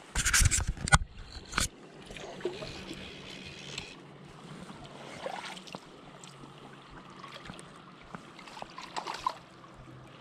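Shallow stream water running and trickling over a gravel bed. A burst of loud knocks and rustles comes in the first second and a half, with a few fainter knocks later.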